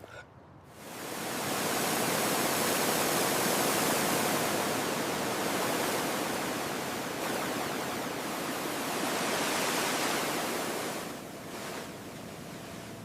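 A steady rushing hiss, like spraying or running water, that builds up about a second in and fades down near the end.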